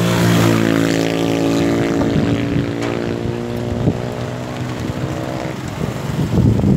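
A motor drones steadily over a rushing, wind-like noise, then the drone stops about five and a half seconds in.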